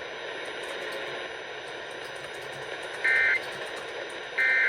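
Emergency Alert System end-of-message data bursts over NOAA Weather Radio: static hiss, then two short two-tone digital chirps about a second apart starting about three seconds in. The bursts signal the end of the warning message.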